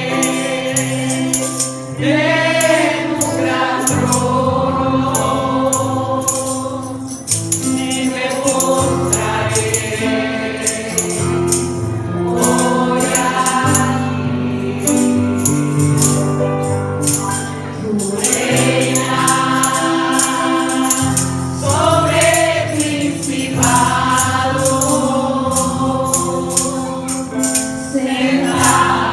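Congregation singing a Spanish worship song with instrumental accompaniment and a tambourine shaken in a steady beat.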